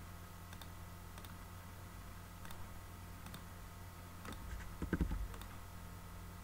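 Scattered single clicks of a computer mouse while drawing dimensions in CAD software, over a steady low electrical hum, with a louder knock about five seconds in.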